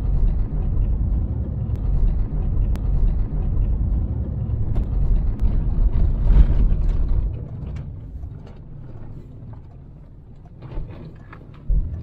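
Pickup truck driving slowly on a dirt road, heard from inside the cab: a steady low rumble of engine and tyres with scattered small clicks and rattles. The rumble drops to a much quieter level about seven seconds in as the truck slows.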